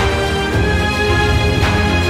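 Background music: a sustained, steady theme-style track with a strong low bass.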